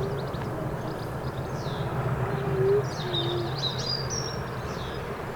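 English Electric Class 37 diesel locomotive's engine running steadily in the distance as it approaches, a low drone. Small birds chirp over it, most around the middle.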